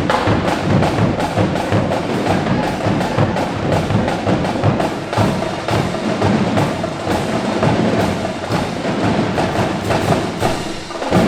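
Marching drumline playing a fast percussion cadence of rapid stick strokes on drums. It closes on one loud accented hit near the end, then cuts off.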